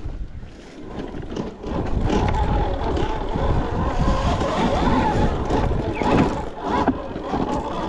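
Electric e-bike ridden over rough ground: low wind and terrain rumble with small knocks, and from about two seconds in, a whine from the electric motor wavering up and down in pitch.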